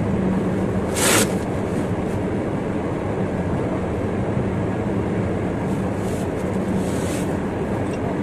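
Air-braked vehicle's engine idling steadily, with a short sharp hiss of compressed air about a second in and a few fainter hisses later, as the air brakes are tried out after the brake chamber diaphragm has been replaced.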